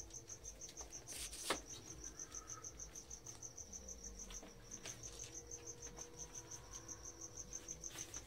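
A cricket chirping in an even, unbroken train of high pulses, about five a second. A single sharp click comes about a second and a half in.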